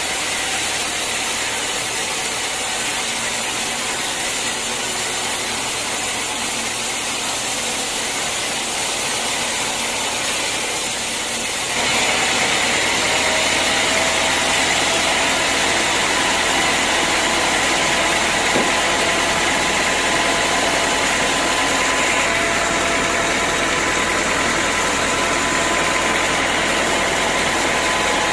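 Sawmill running steadily; about twelve seconds in it grows louder and takes on a higher, whining edge with several steady tones.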